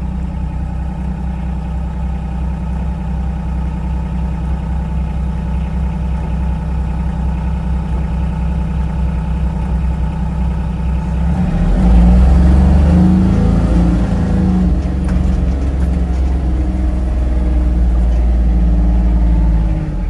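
Farm tractor engine running steadily, heard from inside a cab. About eleven seconds in the engine note rises and grows louder and rougher, and stays so until near the end.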